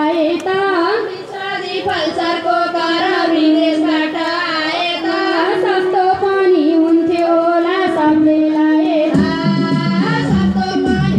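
Women singing a Nepali Teej song (teej geet) to music, the melody bending and holding long notes; lower-pitched notes join about nine seconds in.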